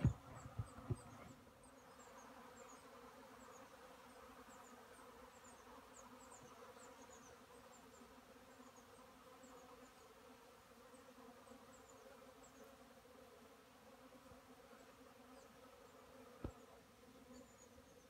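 Honeybees of a newly arrived swarm buzzing around the hive in a steady hum. Faint high chirps in the first few seconds, and a few brief knocks near the start and once near the end.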